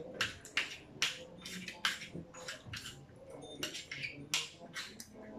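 Eating sounds: irregular sharp clicks and scrapes of plastic spoons and forks working food on takeout plates, with chewing, about two or three a second.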